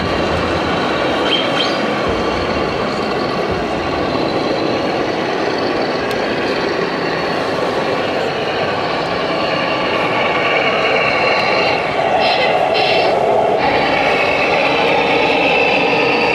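Scale RC Scania truck's sound module playing a diesel engine running steadily through its loudspeaker, over a constant hall din. The sound grows a little louder about ten seconds in.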